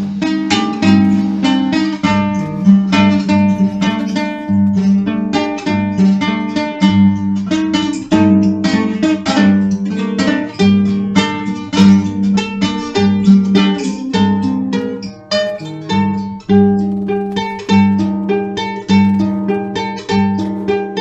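Dark folk music: rapidly picked acoustic guitar notes over a steady, held low note.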